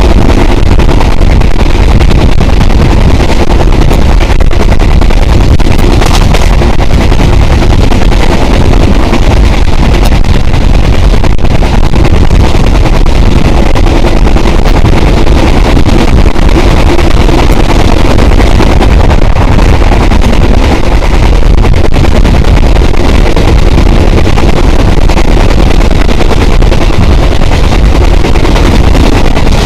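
Passenger train running at speed, heard from outside the carriage: a steady, very loud rumble of the running train mixed with wind buffeting the microphone.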